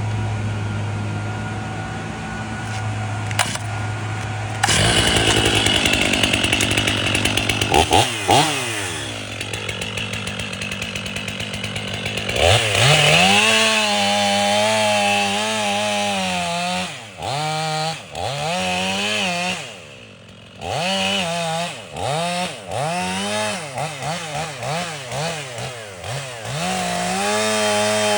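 Stihl 500i fuel-injected two-stroke chainsaw cutting through oak: a steady low engine note at first, then running hard from about five seconds in, the pitch falling away, and from about twelve seconds the engine note repeatedly rising and dipping as the saw revs and bogs in the wood, with a brief drop in level near twenty seconds.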